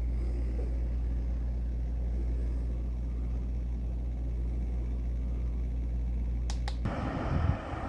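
An engine running with a steady low drone. About seven seconds in it cuts off abruptly to the rush of wind on the microphone.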